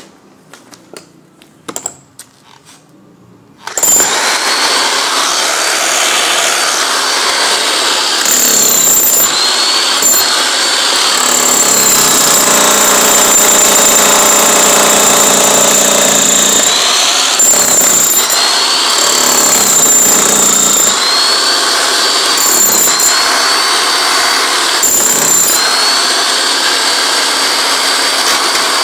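A few light knocks, then about four seconds in a corded electric demolition hammer starts up and chisels into a concrete floor, running loud and continuous. It stops briefly several times, and its motor whine rises again each time it restarts.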